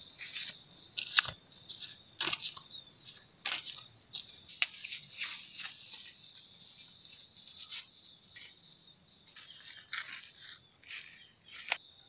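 Steady high-pitched insect chorus, with scattered clicks and rustles throughout; the high drone thins out about nine seconds in.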